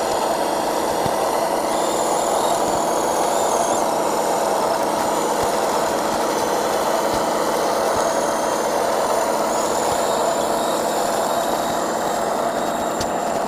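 Homemade steel RC logging truck's motor and drivetrain running steadily, a mechanical hum with a high whine that wavers in pitch, and a couple of sharp clicks near the end.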